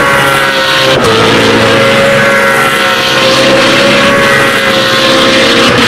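BMW Z4 GT3 race car's V8 engine at full throttle, accelerating away, with a quick upshift about a second in and another near the end, the note dropping at each shift and then climbing again.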